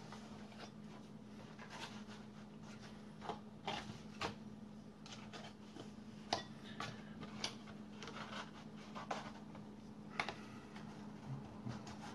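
Stiff cardstock papercraft pieces being handled and fitted together on a tabletop: scattered light taps and clicks with some soft rubbing, over a faint steady hum.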